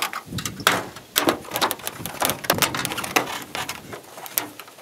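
A rain gutter knocking and clattering against the shelter's metal roof edge as it is shoved and adjusted into place by hand: a quick, irregular run of sharp clicks and knocks that thins out near the end.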